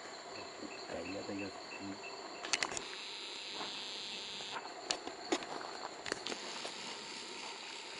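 Rainforest insects chirping and buzzing in a steady high chorus. A chirp pulses about four times a second in the first two seconds, and a louder buzz joins from about three seconds in to about four and a half seconds. Faint voices come early on, and there are a few scattered clicks.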